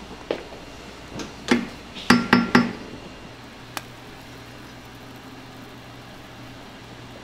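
Kitchen utensils knocking and clinking against stainless steel cookware, about seven hits that ring briefly, the loudest three in quick succession about two seconds in. A steady low hum runs underneath.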